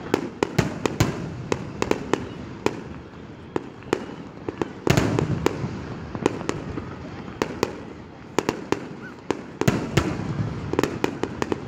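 Aerial fireworks shells bursting overhead: an irregular run of sharp bangs and cracks, with a louder, denser stretch of bursts about five seconds in.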